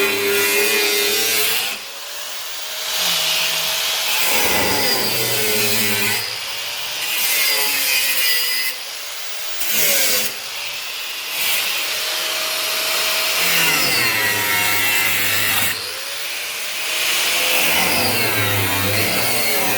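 A power tool cuts sheet steel, its motor pitch sagging and recovering as it bites, with a few brief pauses between cuts.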